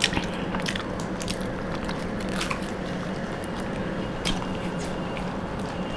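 People chewing and biting into homemade chicken rolls, with scattered small clicks of eating.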